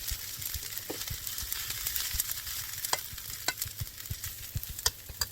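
Food sizzling in a hot pan and being stirred, with many small ticks and scrapes of a utensil against the pan over a steady hiss.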